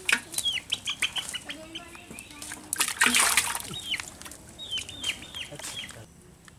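Live fish flapping and slapping against the cast net and the ground as they are picked out of the mesh, with a louder rustle of net about three seconds in. Chickens cluck and peep in short falling chirps through it.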